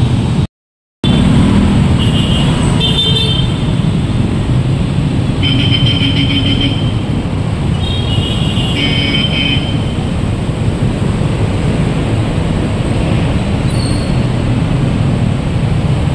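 Dense road traffic heard from a motorcycle in a jam: a steady loud rumble of engines and road noise, with short vehicle horn toots at about two, six and nine seconds in. The sound cuts out completely for about half a second just after the start.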